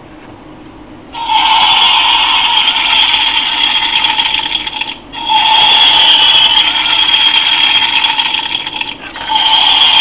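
Golf-ball toy digital alarm clock's alarm going off, a loud harsh electronic buzz. It starts about a second in and sounds in long stretches of about four seconds with brief breaks between.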